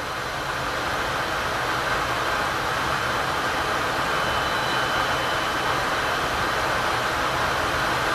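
Steady rushing roar of a jet aircraft in flight, swelling a little over the first couple of seconds.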